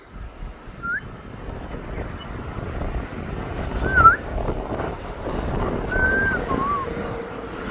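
A dog whining in several short, high, gliding whimpers over rough, noisy huffing, with one louder burst about four seconds in.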